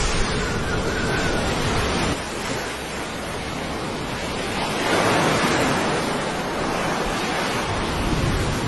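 A steady rushing noise that drops a little about two seconds in and swells again about five seconds in.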